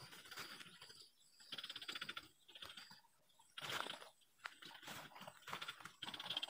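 White-breasted waterhen calling: short bursts of rapid rattling, croaking notes, faint, repeating about once a second.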